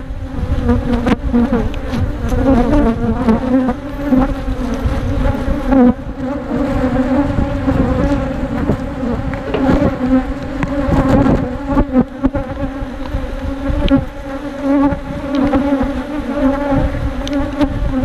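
Many honeybees buzzing loudly around an opened hive: a steady hum, with scattered short knocks and clicks.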